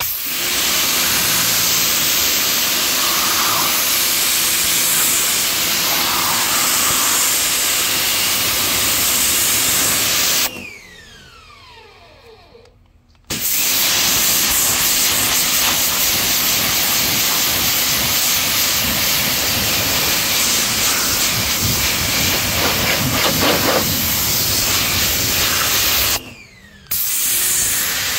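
Harbor Freight 1750 psi electric pressure washer spraying a jet of water onto SeaDek foam deck padding, a steady loud hiss. The spray stops twice, for nearly three seconds about ten seconds in and briefly near the end, with a faint falling whine each time before it starts again.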